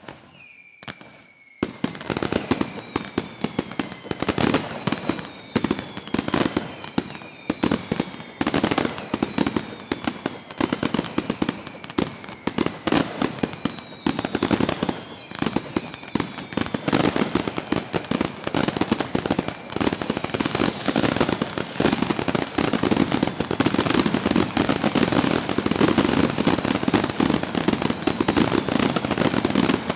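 Fireworks display: a dense barrage of crackling, popping bursts, with a string of slowly falling whistles through the first half. The barrage grows louder and denser toward the end.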